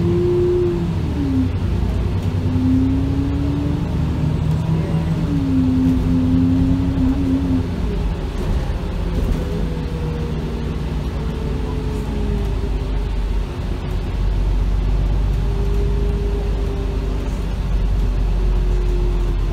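Alexander Dennis Enviro 400 double-decker bus heard from inside the lower deck: a steady low engine rumble with a whine that rises in pitch and drops back several times as the bus pulls through its gears, then settles into a steadier running note.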